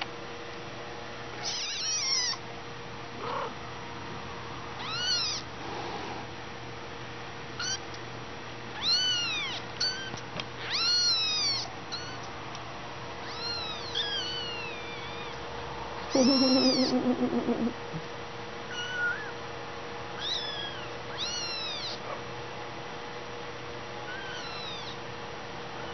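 Young Persian kittens mewing: many short, high, thin cries that rise and fall, some single and some in quick clusters. About two-thirds of the way through, a louder, lower, rapidly pulsing sound lasts about a second and a half.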